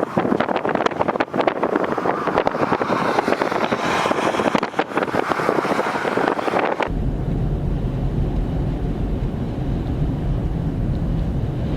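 Strong wind buffeting the microphone in gusts, then an abrupt cut about seven seconds in to a steady low rumble.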